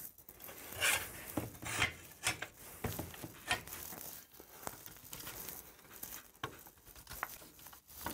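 A 5 mm bent-steel reinforcement bracket being pushed and worked onto a DQ500 transfer case casing: irregular metal clinks, knocks and scraping. The bracket is a tight fit because of a bolt fitted temporarily earlier.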